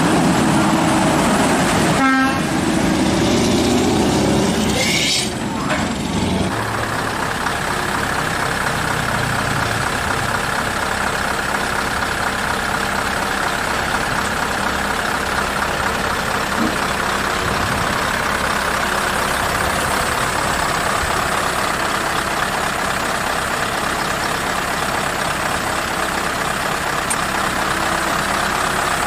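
Heavy truck engine running steadily under load, with a horn sounding briefly about two seconds in and a short rising sweep near five seconds; from about six seconds on only the steady engine drone remains.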